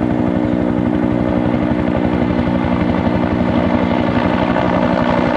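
Helicopter sound effect: the rapid, even chop of rotor blades over a steady engine drone.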